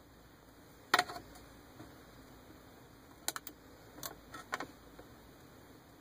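Sharp clicks from a car's centre console: one loud click about a second in, then several lighter clicks between about three and five seconds in, as a toggle switch is flipped to wake the dash-mounted tablet.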